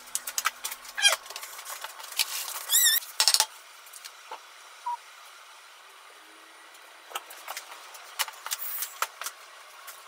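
Kitchen handling sounds: a paper towel rustling as it is pressed over wet cucumber ribbons, then the thin strips being picked up and laid on a plate, with soft clicks and taps. A short warbling squeak comes about three seconds in.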